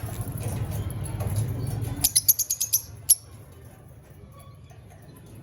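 Fischer's lovebirds chirping: a rapid run of about eight sharp, high chirps about two seconds in, then one more a second later, over a low rumbling background noise.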